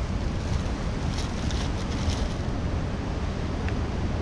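Wind buffeting the microphone with ocean surf behind it, as a steady low rumble and wash. A few faint crinkles of plastic zip-lock bags being handled come between about one and two and a half seconds in.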